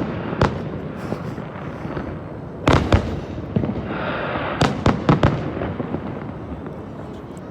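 Aerial fireworks bursting: sharp bangs just after the start, a pair about three seconds in, and a cluster around five seconds, over a continuous rumble between them.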